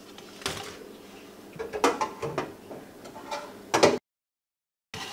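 Wire fryer basket being shaken and knocked against the fryer to drain the oil off fresh fries: a few sharp metal knocks over a faint sizzle. The sound cuts off suddenly to dead silence near the end.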